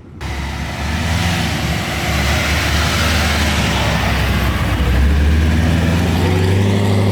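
A car's engine and exhaust running loud as it drives off, with a steady low engine drone under a wide rush of exhaust noise that swells about five seconds in.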